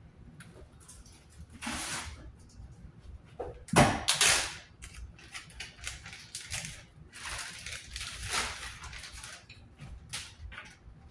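Kitchen cleanup clatter: scattered clicks and knocks of things being handled and set down, with a loud sharp knock about four seconds in and brief rustling noises around it.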